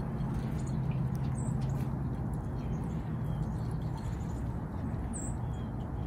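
Small songbirds giving a few short, high chips, about a second and a half in and again about five seconds in, over a steady low background rumble.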